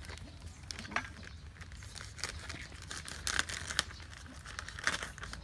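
Plastic bag of rice flour crinkling and rustling as it is opened and handled over a bowl, in irregular crackles.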